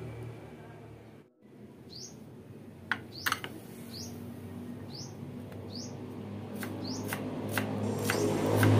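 Kitchen knife slicing an onion on a wooden chopping board, giving a few sharp clicks and knocks. Short, high, rising chirps repeat about once a second over it.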